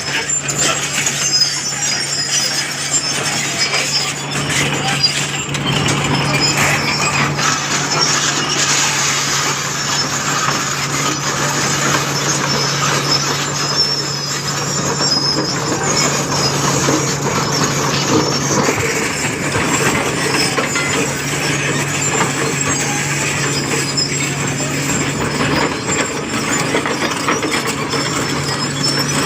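Excavator diesel engine running with a steady low hum while a hydraulic breaker hammers in rapid, continuous strikes.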